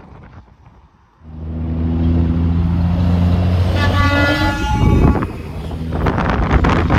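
Semi truck on the interstate: a low, steady diesel drone starts suddenly about a second in, and an air horn blast sounds around four to five seconds in. The loud rush of the truck going by follows near the end.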